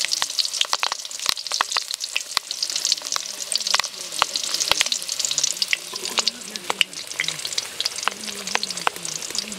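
Banana-leaf parcel of stingray frying in a metal pan: a steady sizzling hiss with frequent crackles and pops.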